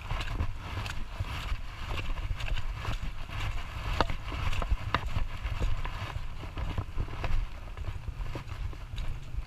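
Wind buffeting the microphone of a moving action camera, with scattered sharp clicks and rattles; the clearest click comes about four seconds in.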